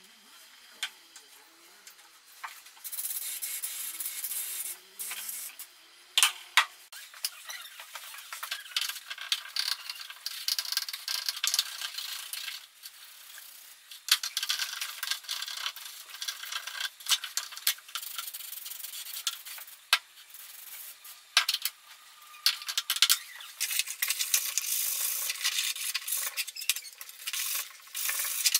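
Hand rubbing or scrubbing on a hard surface, in uneven scratchy strokes starting about three seconds in, with several sharp knocks between them, as in cleaning down old angle-grinder parts.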